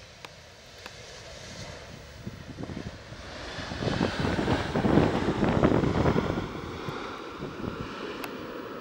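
Jet engines of a Boeing 777-200 on its landing roll just after touchdown. The rumble swells as the airliner passes closest, about four to six seconds in, then fades as it rolls away.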